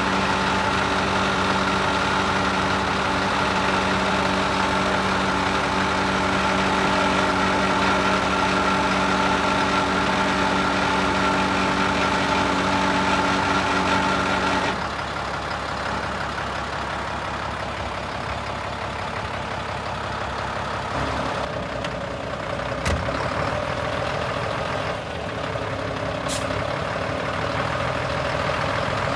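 Scania 93M 210 truck's diesel engine running at steady raised revs while its hydraulic tipping frame moves the tipped body. About halfway through, the revs drop suddenly and it settles into a lower idle, with a couple of sharp clicks later on.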